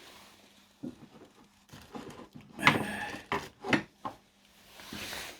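Small metal clicks and knocks from a screwdriver and hands working on a mantle clock movement, a handful of sharp clicks scattered through, the loudest about halfway in, with a soft rustle near the end.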